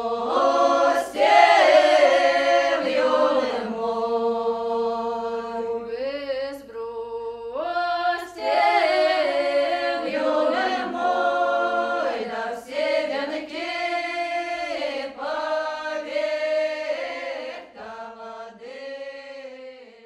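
Unaccompanied choir singing a slow song in long held notes, dying away near the end.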